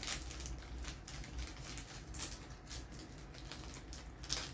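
Plastic wrapper of a Dark Fantasy chocolate-filled cookie crinkling and crackling in irregular bursts as it is worked open by hand.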